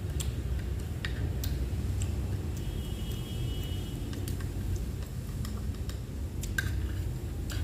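A few light, scattered clicks of a fork and chopsticks against a plate as an omelette is cut and eaten, over a steady low background hum.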